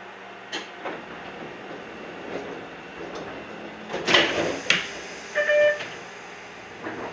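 Iyo Railway 3000-series train's pneumatic sliding doors working: a burst of air hiss about four seconds in and a sharp knock just after. A short electronic tone follows about a second later, and a few light clicks come before the doors.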